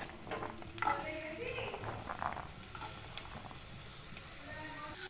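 Capsicum strips and green peas sizzling steadily as they fry in hot oil in a non-stick kadai, with a light click about a second in.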